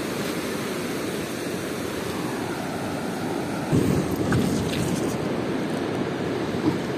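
Shallow surf washing up and back over a sandy beach: a steady rush of water, with a louder surge about four seconds in.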